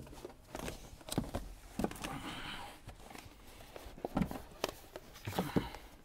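Heavy felt-backed mass-loaded vinyl floor liner being handled and pushed into place over foil-faced sound deadener on a truck's cab floor: soft rustling and scraping with scattered light taps.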